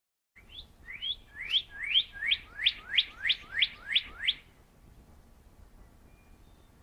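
Northern cardinal singing: a run of about eleven clear slurred whistles, each sweeping upward, coming faster and louder before breaking off about four seconds in.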